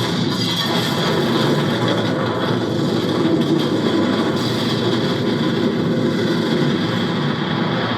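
Action-film soundtrack played through a Hisense E79Q PRO TV's speakers: a dense, steady rush of engine-like noise that holds at much the same level throughout.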